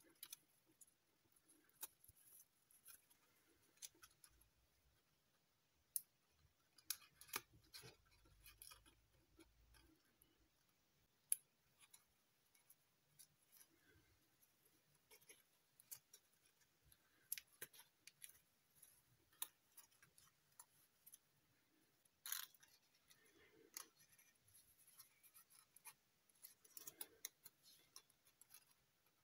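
Faint, scattered crinkles and clicks of stiff foil-backed paper being handled as folded origami units are tucked into one another, with a few sharper clicks among them.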